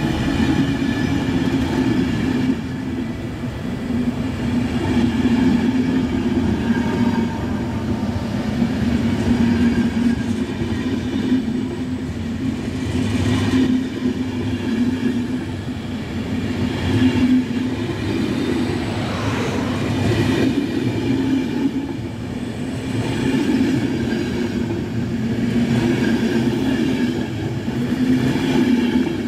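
Hungarian MÁV-START passenger coaches rolling past along the track, their wheels running on the rails with a steady rumble.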